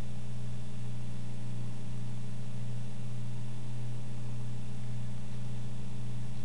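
Steady low hum with a faint hiss, unchanging and with no other events.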